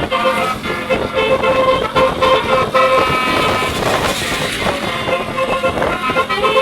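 Basuri 36-note telolet horn on a medium bus playing a melody of short, stepped horn notes. A brief rushing noise cuts across about four seconds in.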